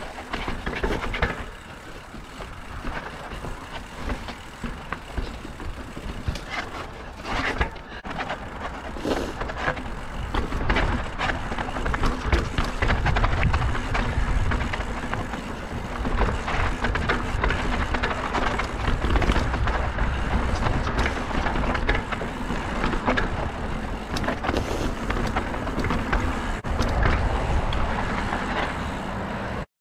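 Mountain bike riding down a dirt trail: tyres rolling over dirt and stones, with rattles and knocks from the bike and wind buffeting the camera microphone, heavier in the second half.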